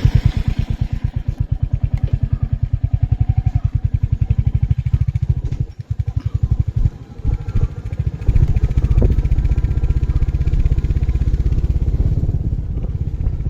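Royal Enfield 350 motorcycle's single-cylinder engine running on the move, its exhaust a steady, even thump. It drops away briefly around five to six seconds in, then picks up again and runs louder from about eight seconds.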